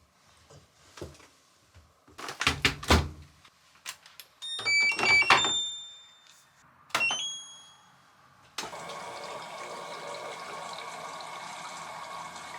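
A few handling clunks, then an electronic appliance's beeps playing a short stepped start-up tune. About two-thirds through, a steady rush of running water starts suddenly.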